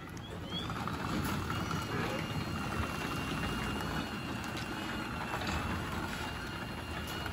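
Sommer evo+ 2060 garage door opener running to close a sectional door, its motor carriage travelling along the rail with a steady hum and a faint high whine. The motor is set to run at 7200 RPM in the closing direction.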